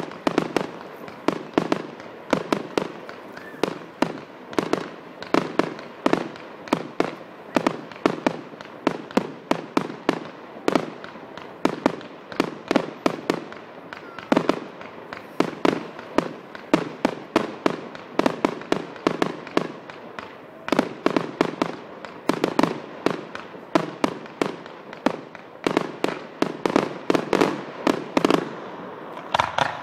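Aerial firework shells bursting in quick succession, a steady run of sharp bangs at about two a second.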